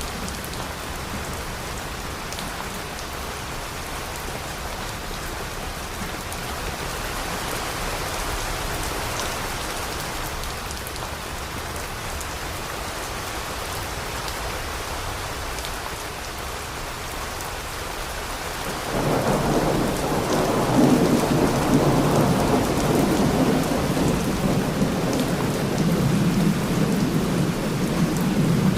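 Steady rain falling. About two-thirds of the way in, a loud roll of thunder breaks in and rumbles on to the end.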